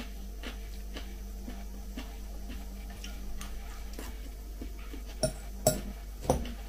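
Metal fork clinking three times against a glass salad bowl near the end, each a sharp click with a short ring. Faint, even ticking about twice a second runs underneath.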